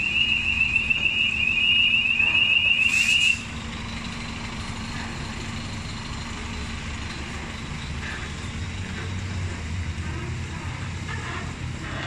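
Scania G440 truck's reversing alarm sounding a loud, fast-pulsing high tone while the rig backs up, cutting off suddenly about three seconds in as it stops. The diesel engine's low running rumble then carries on, swelling slightly about ten seconds in.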